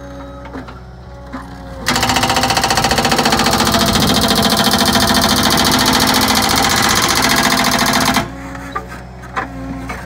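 Hydraulic breaker on a compact track loader hammering concrete: rapid, even blows that start about two seconds in and stop suddenly about six seconds later. Before and after, the loader's engine runs steadily with a few light clicks.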